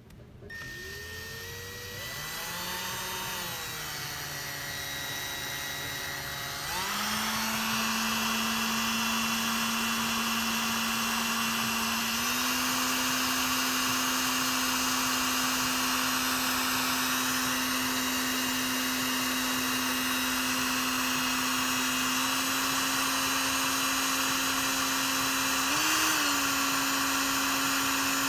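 Cordless drill turning a Porsche Boxster 986 convertible top transmission: a steady motor whine that starts low, then grows louder and higher about seven seconds in and keeps stepping up in pitch, with a brief rise and fall near the end.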